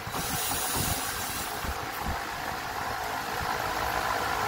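Cordless right-angle drill running steadily as it turns a square-drive screw in the inverter's mounting.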